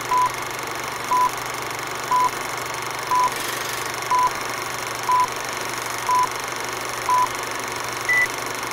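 Film-leader countdown sound effect: a short electronic beep once a second, eight at the same pitch, then a higher beep for the last count near the end, over a steady hiss and low hum.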